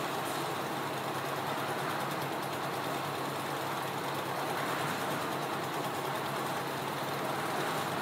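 Concrete mixer's single-cylinder diesel engine running steadily at an even speed.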